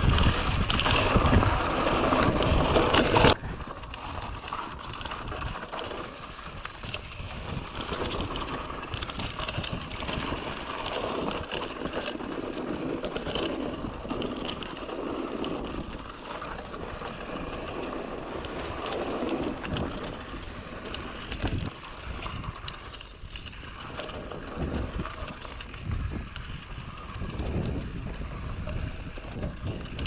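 Polygon Siskiu D5 full-suspension mountain bike descending a dirt trail: wind rushing over the action-camera microphone, with the tyres and bike rattling over the ground. The rush is loudest at first and drops sharply about three seconds in.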